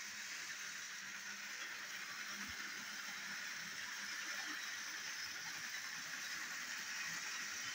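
Battery-powered toy train engine running with a steady whir from its small motor and plastic wheels, hauling four trucks and a brake van along plastic track.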